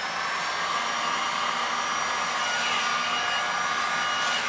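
Electric heat gun running steadily, blowing air: a rush of air with a steady fan whine.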